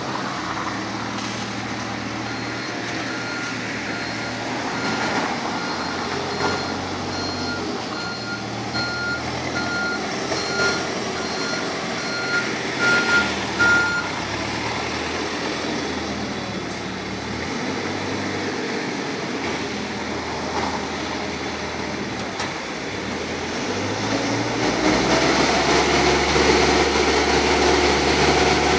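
Bobcat T40180 telehandler's diesel engine running, with its reversing alarm beeping about once a second through the first half. Near the end the engine revs up, rising in pitch, as the telescopic boom is raised.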